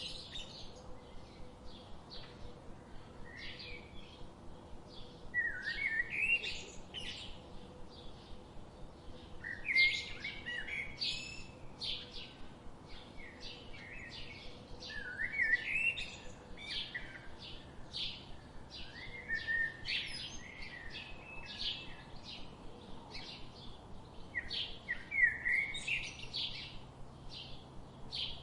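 Several small birds chirping and twittering in short, rapid, overlapping phrases, with a few louder bursts of song every few seconds.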